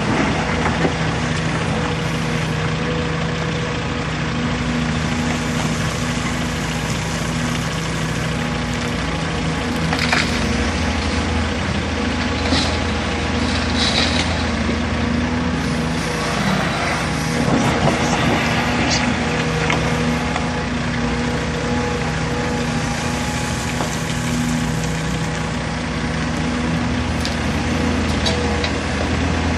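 Caterpillar 336 hydraulic excavator's diesel engine running steadily at working revs while loading a truck, with scattered knocks and crunches of material in the bucket and truck body.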